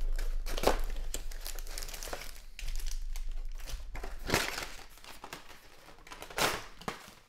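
Foil-wrapped trading card packs crinkling and rustling as they are lifted out of a cardboard hobby box and stacked on a table, in irregular bursts with the loudest about four and a half and six and a half seconds in.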